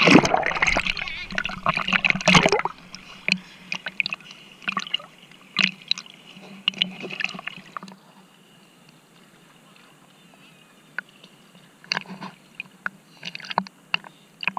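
Water splashing and sloshing around a swimmer. It is loud for the first two and a half seconds, then thins to scattered small splashes and drips, goes quieter for a few seconds past the middle, and picks up again with small splashes near the end.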